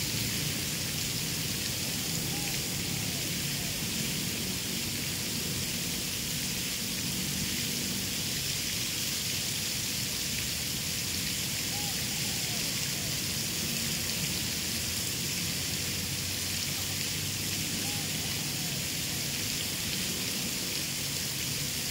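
Water fountain splashing: a steady, even hiss of falling water.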